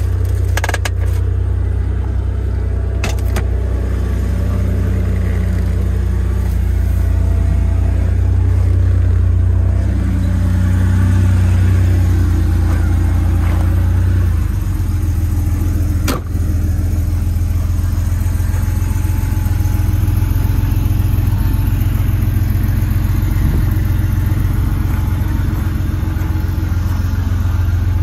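1988 Porsche 911 Turbo's air-cooled, turbocharged flat-six idling with a steady low rumble. It is heard first from inside the cabin and then from outside the car. A few clicks come near the start and a single sharp knock about sixteen seconds in.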